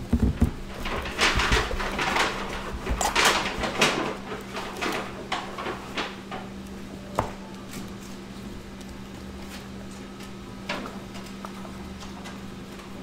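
Small white cardboard trading-card box being opened by hand: the lid scrapes and slides off and the stack of cards rustles as it is worked out, for about six seconds. Then a sharp tap about seven seconds in and another near eleven, over a steady low hum.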